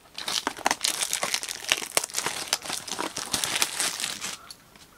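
Plastic wrapping crinkling and tearing as a blaster box of trading cards is unwrapped and handled, in a dense run of crackles that dies down just before the end.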